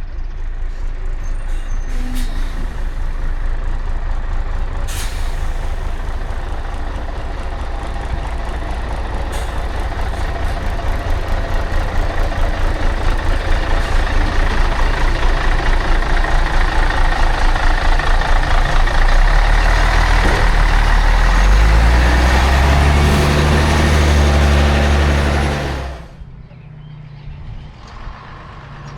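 Classic diesel bus engine running close by with a pulsing beat, getting louder, then climbing in pitch as it accelerates away. Two short air hisses come in the first few seconds. Near the end the sound cuts off abruptly, leaving a quieter idling engine.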